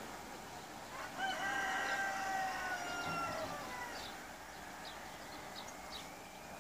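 A rooster crowing once, one long call of about two and a half seconds starting about a second in, with faint short chirps of small birds around it.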